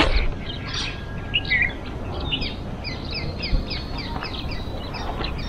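Small birds chirping: many short, quick chirps repeating throughout. Brief rustles of tent fabric and poles as a dome tent is put up, the loudest right at the start.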